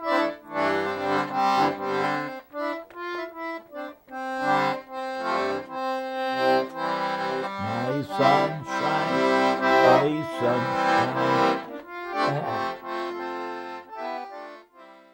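Accordion playing a tune: a melody over bass notes and chords from the left-hand buttons. The playing stops just before the end.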